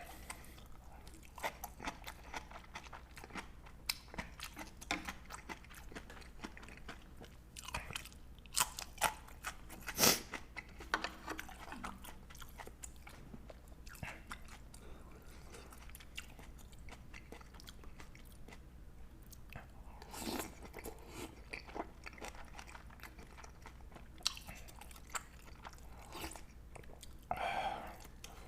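Close-up eating sounds: a person chewing and crunching food, with irregular soft clicks and a few louder clicks and knocks bunched together about a third of the way through.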